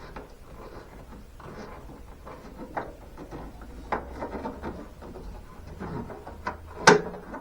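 Light rubbing and scattered small clicks of screws and a screwdriver being worked into the side trim molding, with one sharp click about seven seconds in.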